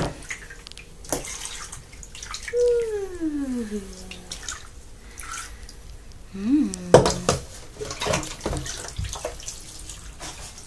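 Bath water splashing and dripping in an infant bath tub as water is scooped and poured over a baby with a plastic cup, with a cluster of splashes about seven seconds in. A voice makes a drawn-out sound gliding down in pitch about two and a half seconds in, and another short one a little later.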